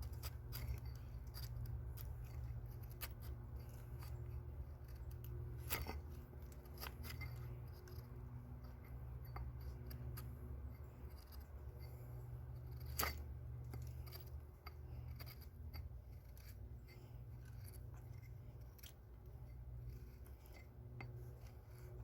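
A convex-ground camp axe blade, held choked up near the head, shaving curls off a piece of wood: faint repeated scraping and slicing cuts, with two sharper clicks about 6 and 13 seconds in.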